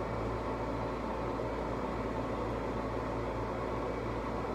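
Steady background hum with an even hiss, unchanging throughout, like a running machine.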